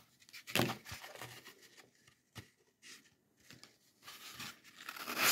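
Hands handling a block of floral foam and a plastic pumpkin: scattered soft rustles and a few light taps, with a longer, louder rustle near the end.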